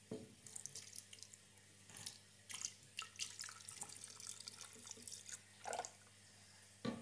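Milk poured from a bowl into a plastic blender jar over broken biscuits: a faint, uneven trickling and splashing. A couple of light knocks come near the end.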